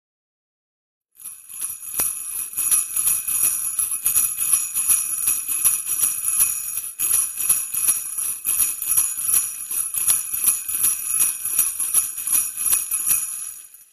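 Jingle bells shaken in a steady rhythm, about three shakes a second, starting about a second in and stopping just before the end.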